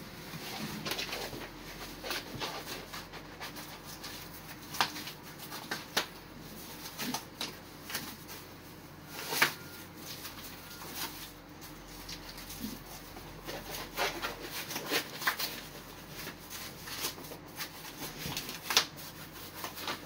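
Immersion survival suit fabric rustling and rubbing as the wearer fumbles with its thick gloves, broken by scattered sharp clicks and taps, the loudest about halfway through.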